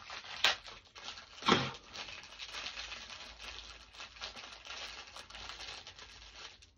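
Snack packaging being opened: a cardboard box and the plastic wrapping of Jaffa Cakes crinkling and rustling in the hands, with two louder, sharper tears about half a second and a second and a half in.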